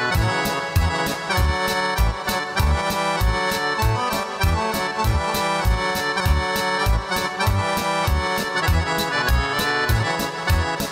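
Accordion-led Serbian folk dance music with a steady bass beat.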